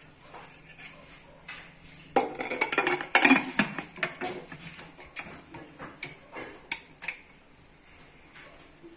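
Aluminium pressure cooker being closed: metal clinks and knocks as the lid goes on and is twisted shut against the pot, a dense clatter about two to four seconds in, then a few lighter clicks.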